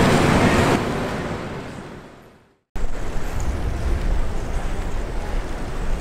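Steady rushing wind and street noise from moving outdoors on skates. It fades out over about two seconds to a moment of silence, then cuts back in as a steady low rumble of wind on the microphone.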